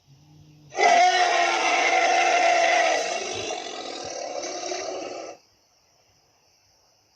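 Tyrannosaurus rex roar sound effect: one long roar starting about a second in, loudest for its first two seconds, then weaker before it cuts off suddenly after about four and a half seconds.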